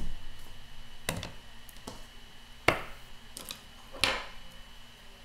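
Four light knocks and clicks as hard plastic stamping supplies, clear acrylic stamp blocks and an ink pad case, are set down on the work surface. The sharpest click comes about two and a half seconds in.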